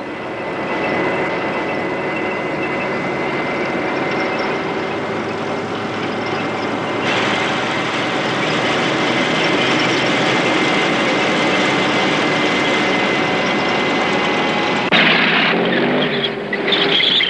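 Vehicle engines running steadily: a dense, noisy rumble with steady whining tones. The sound changes abruptly about seven seconds in and again about fifteen seconds in.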